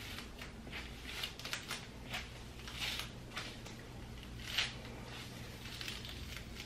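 Soft squishing, rustling strokes of wet, conditioner-coated curly hair being brushed through with a detangling brush and worked by hand, a few strokes a second with one louder one about four and a half seconds in, over a faint steady low hum.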